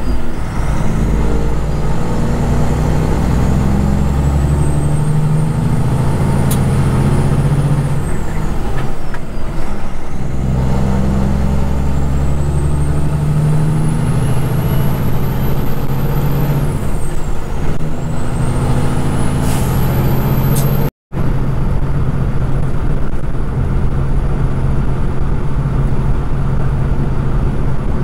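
Kenworth road train's diesel engine running on the highway, its low drone swelling and easing twice, with a high whistle that climbs over several seconds and then drops away, three times over. The sound cuts out for an instant about three quarters of the way through, then the engine runs on steadily.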